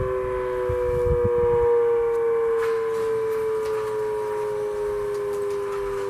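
Sterling 5VX fire siren sounding its attack cycle: a steady two-note chord drifting slowly down in pitch. Low thumps sit under it for the first second and a half.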